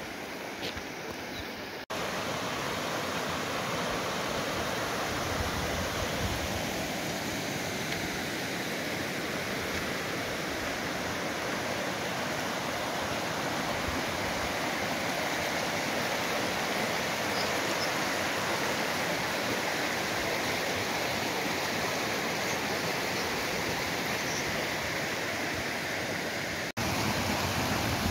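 Small rocky mountain stream running over stones: a steady, even rush of water. It drops out for an instant about two seconds in and again near the end.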